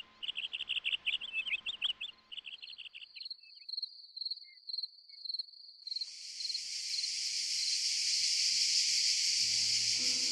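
Songbirds chirping rapidly for the first few seconds, giving way to a high, pulsing insect trill, then from about six seconds in a loud, steady, high-pitched cicada buzz. A few music notes come in near the end.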